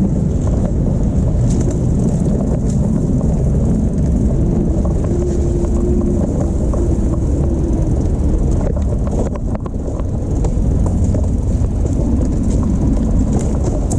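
All-wheel-drive e-bike towing a cart on a muddy trail: a steady, heavy rumble of wind and tyres while riding, dipping briefly a little after halfway.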